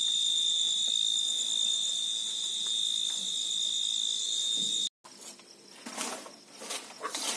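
Insects chirring in one steady high trill that cuts off abruptly about five seconds in. Irregular rustling and crackling follow.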